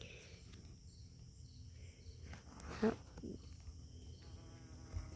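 Faint garden background of insects chirping in an even, repeating pulse, over a low rumble. One brief click about three seconds in.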